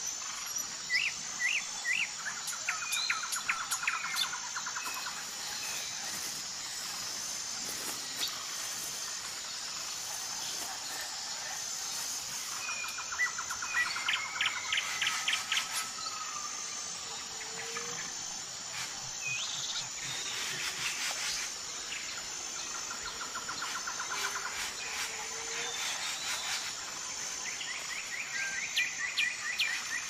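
Birds calling in short trills and clusters of rapid notes several times, over a steady high-pitched, pulsing insect chorus.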